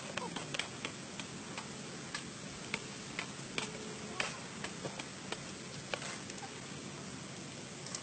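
Sparse, irregular light clicks and ticks, a few per second at most, over a steady low hiss.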